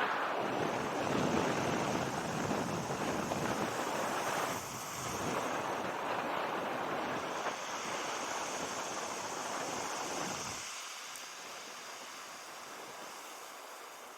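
Waves washing on the beach, with wind on the microphone. The low rumble drops out about ten seconds in, leaving a softer wash.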